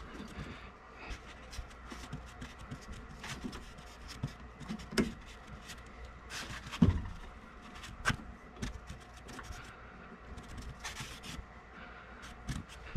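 A RIDGID tubing cutter being turned around a copper water pipe, its cutting wheel scoring the copper with irregular scraping and clicking. Two louder knocks come about 7 and 8 seconds in.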